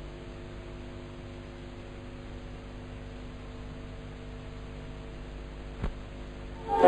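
Steady hiss and hum of an old analogue film soundtrack between pieces of music, with a single click about six seconds in; music comes in right at the end.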